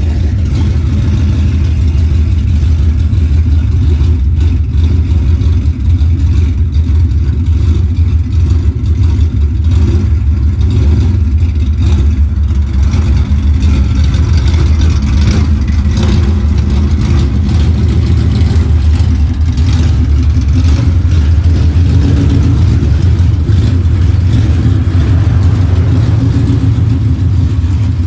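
Ford Mustang's Coyote 5.0 V8 with Stage 2 camshafts running at a steady, uneven idle. The choppy lope of the big cams is what the owner jokes could pass for a misfire.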